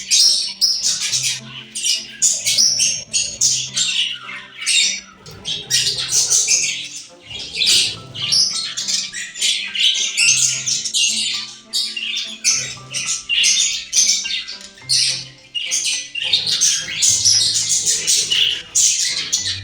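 Budgerigars chattering and squawking in a rapid, continuous stream of scratchy calls. Background music with low held bass notes plays underneath.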